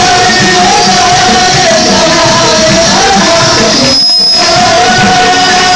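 Loud church worship music: singing voices carrying a held, wavering melody over a band.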